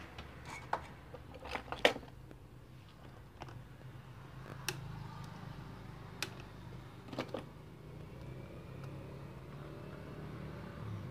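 Scattered light clicks and taps of a circuit board being handled and set against a TV's metal back panel, the loudest about two seconds in, over a faint steady low hum.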